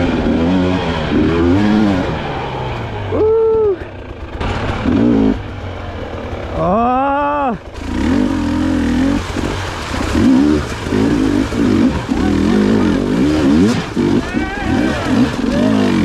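Enduro dirt bike engine revving on the trail, its pitch climbing and dropping again and again with the throttle. Two quick, higher rev sweeps come about three and seven seconds in.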